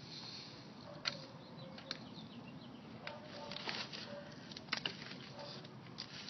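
Small, scattered clicks and light taps of a tiny plastic spoon working in a plastic Popin' Cookin' candy-kit tray, against a low steady hiss.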